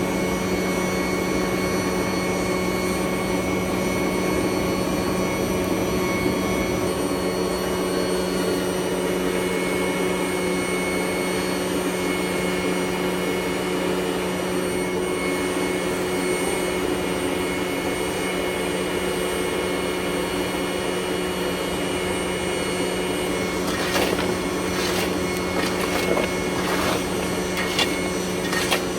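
Steady whir of a motor-driven shop machine with a constant hum. Near the end, a string of short knocks and clicks over it.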